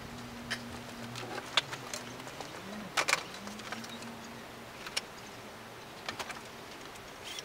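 Hands taking apart a sheet-metal computer case: irregular metal clicks, taps and clanks of the case and its parts being handled, with a louder clatter about three seconds in.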